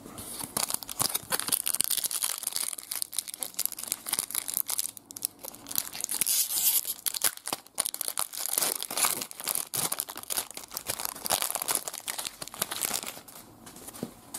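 Foil trading-card pack crinkling and tearing as it is picked up and ripped open by hand, a dense crackly rustle that dies down near the end.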